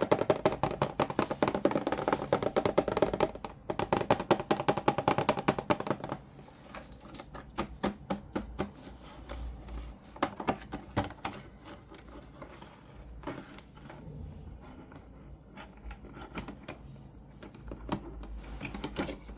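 Doll packaging being handled and opened: rapid, dense crackling and clicking for about six seconds, then sparser clicks and taps.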